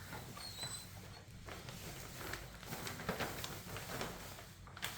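Faint rustling and light taps, scattered irregularly, as things are moved about while searching for an escaped mouse.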